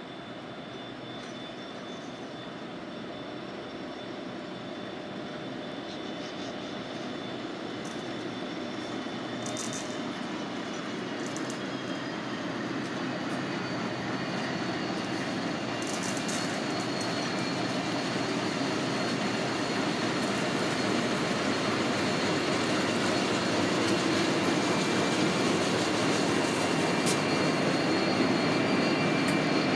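Diesel freight train led by three diesel-electric locomotives slowly approaching and passing as it slows to stop, the engines' rumble growing steadily louder as they come alongside. A thin high steel-on-steel squeal runs over the rumble, with a few sharp clicks.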